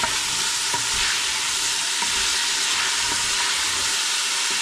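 Diced carrots, celery, onion and garlic sizzling steadily in olive oil in a stainless steel stockpot, stirred with a wooden spoon. The vegetables are being sweated until clear, not browned.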